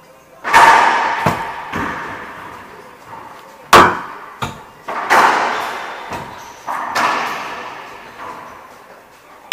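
Racquetball rally: about eight sharp smacks of racquet on ball and ball off the court walls at uneven intervals, each ringing out in a long echo from the enclosed court. The loudest smack comes about a third of the way in.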